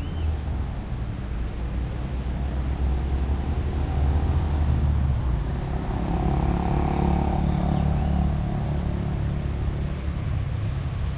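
A motor vehicle's engine passing by, getting louder through the middle and easing off near the end, over a steady low rumble.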